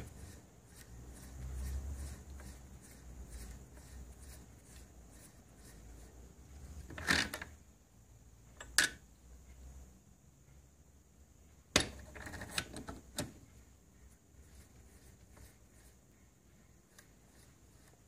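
The shaft of a Ford Escort XR3 blower fan motor, spun by hand, turns freely with a faint low rumble in its newly machined bushings. Later come a few sharp clicks and knocks of the metal motor parts being handled and fitted together.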